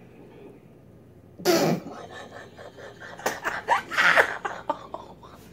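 A woman bursting out laughing: a sudden loud outburst about a second and a half in, then a run of short, uneven bursts of laughter.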